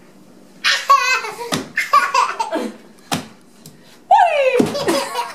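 A toddler and a woman laughing, with a loud falling 'woo' whoop about four seconds in and two short thumps of a bare foot stomping on the floor.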